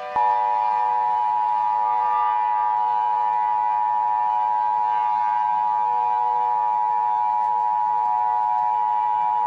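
Emergency Alert System two-tone attention signal: two steady tones sounding together, starting a moment in and held unchanged, announcing an emergency alert.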